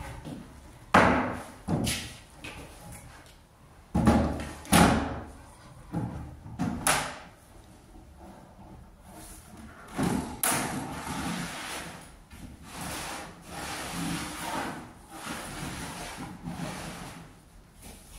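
Plywood panels being handled: a series of sharp knocks and thuds as boards are set down and bumped, then a board scraping and sliding across the metal top of a table saw. The saw is not running.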